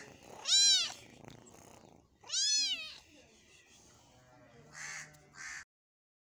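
A kitten meowing twice: short, high-pitched calls that rise and fall in pitch, about two seconds apart. Two fainter, rougher sounds follow near the end, and then the sound cuts off suddenly.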